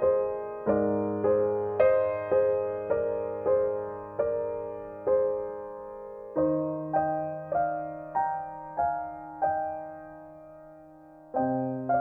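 Background piano music: single notes struck about every half second over held low notes. Near the end one note fades for about two seconds before a new chord comes in.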